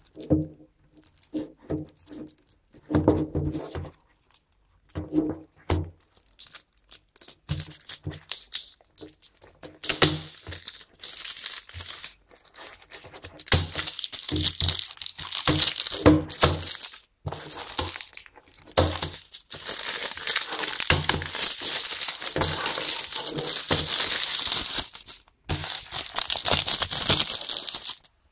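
Handling knocks and thumps on a plastic Blu-ray case, then, from about ten seconds in, a long stretch of crackling and rustling as its plastic shrink-wrap is torn and crinkled.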